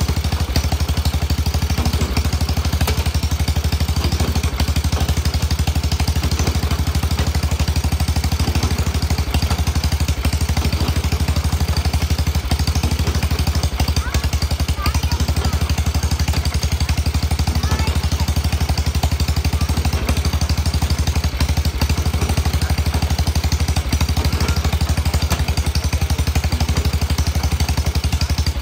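Engine of an antique stationary hay baler running steadily at an even pace, driving the baler as hay is fed into it.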